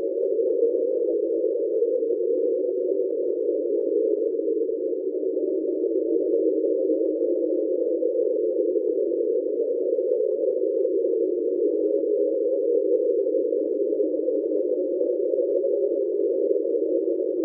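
Underwater recording of the "Train" sound, a steady, unbroken hum of several close tones at an even level, which the official explanation attributes to an iceberg scraping along the seabed.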